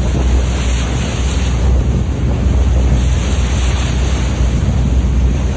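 Wind buffeting the microphone on a moving tour boat, with a steady low rumble and the rush of water along the hull.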